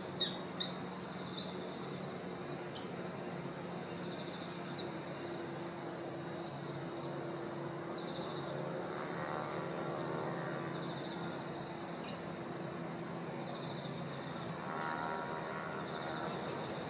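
Small birds chirping and trilling: short, high-pitched notes and quick pulsed trills repeated throughout, over a steady low hum.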